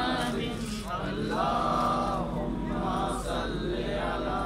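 Men's voices chanting a devotional recitation, with a long held note a little past a second in.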